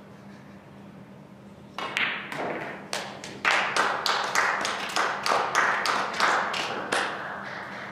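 Sparse hand clapping starting about two seconds in: a run of loud, irregular claps, about two or three a second, applauding the match-winning 10-ball being pocketed.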